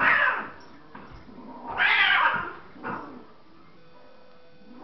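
Two cats fighting: two loud bursts of yowling and hissing, one at the start and one about two seconds in.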